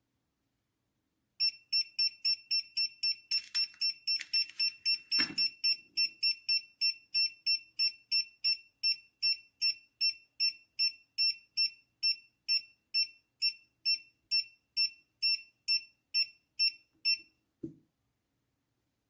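Handheld gas leak detector (Kiprim GD01) sounding its audible gas alarm: short high-pitched beeps, about three a second, for some fifteen seconds, then stopping. A single thump comes about five seconds in, and a short knock shortly after the beeping ends.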